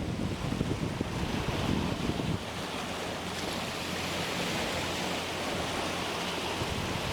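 Wind buffeting the microphone over the rushing of rough sea waves. The gusting eases about two seconds in, leaving a steady low hum under the wash of the water.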